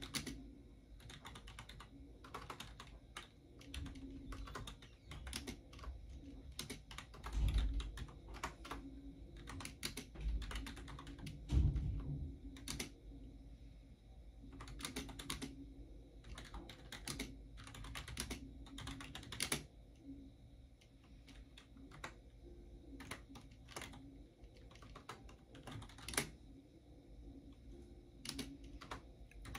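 Typing on a computer keyboard: irregular runs of key clicks with short pauses between them. There are also two heavier, low thumps, about a quarter and two fifths of the way in.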